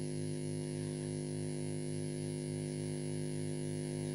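Steady electrical hum and buzz from the recording chain, with a low throb that pulses several times a second and a faint high whine.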